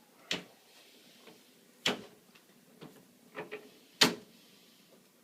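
A series of sharp knocks and clacks from a chiropractic adjusting table as spinal adjustments are given: about six irregularly spaced strikes, the loudest about four seconds in.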